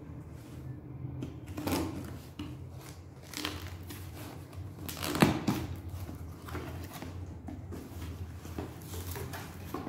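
Cardboard parcel box being handled and opened: irregular rustling and scraping, with a sharp crackle about five seconds in, over a low steady hum.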